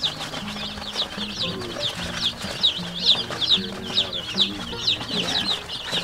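A brooder full of Cornish cross meat chicks peeping continuously: a dense chorus of short, high, falling peeps, several a second, overlapping.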